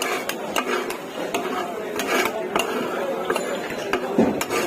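Metal cooking utensils clanking against a pan over and over at an irregular pace, while chicken chap is cooked at a street-food stall. Voices murmur underneath.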